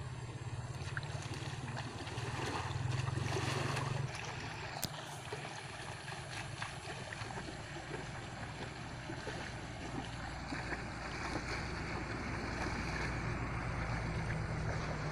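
Wind rumbling on the microphone over moving river water: a steady rushing noise that swells and eases.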